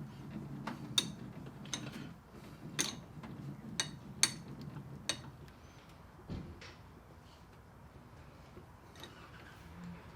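Sharp metal clicks and clinks, about seven in the first five seconds, then a dull thump about six seconds in: a lathe tool post being loosened, turned square and clamped.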